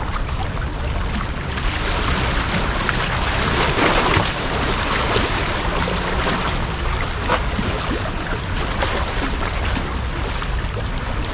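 Sea waves washing against the shore, one swell building to its loudest about four seconds in and then easing off, over a steady low rumble.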